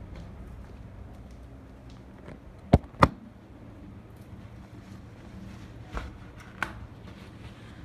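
Two sharp, loud knocks about a third of a second apart, followed a few seconds later by two fainter ones, over a steady low rumble.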